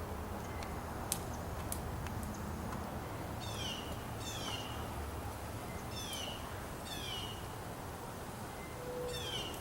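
Birds calling from a tree: short high calls that fall in pitch, mostly in pairs, repeated every second or two over a steady low rumble.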